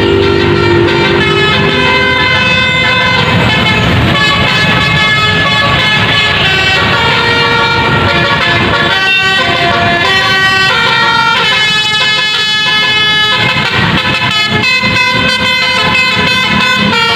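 Indonesian musical vehicle horns (klakson basuri) playing a tune: loud held tones, several sounding together, stepping from pitch to pitch every half second or so.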